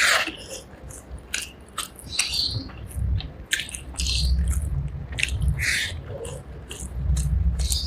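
Close-miked eating of rice with fish curry: wet chewing, lip smacks and mouth clicks in quick irregular succession, with a few stretches of low thumping.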